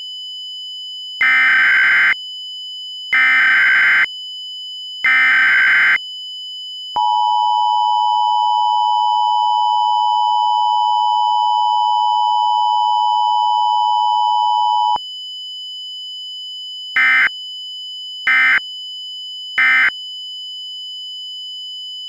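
Emergency Alert System tones: three buzzing data bursts of the SAME header, then the two-tone attention signal held steady for about eight seconds, then three short end-of-message bursts. A steady high-pitched tone runs underneath throughout.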